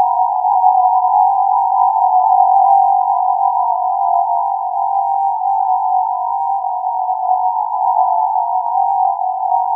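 Steady electronic drone, an even, unbroken tone that neither rises nor falls.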